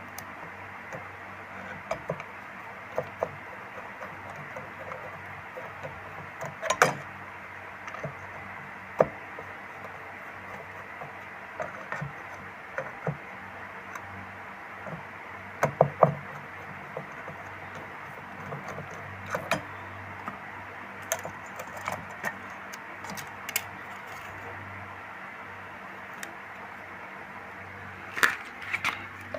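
Scattered sharp clicks and knocks of tools and small hard parts being handled, about one every second or two, over a steady background hiss with a faint low hum.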